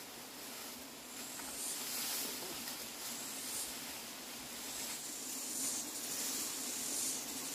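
Bee swarm buzzing as a steady low hum, under a hiss that swells every second or two.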